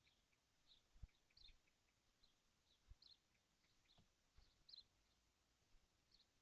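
Faint, high bird chirps repeating a few times a second, with a few soft low thumps.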